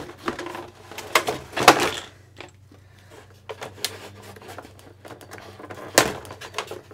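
Cardboard box and packaging being handled: a series of knocks, scrapes and rustles, loudest about two seconds in and again near the end.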